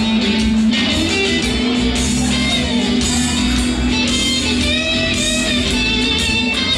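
Blues music with guitar playing steadily.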